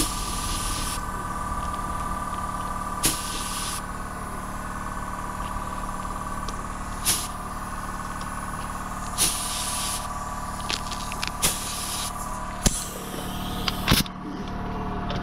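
A small gravity-feed spray gun fading out lacquer edges, giving several short hissing bursts, each a second or less, over the steady hum of a running air compressor. Near the end there is a sharp click and the hiss stops as the air line is uncoupled.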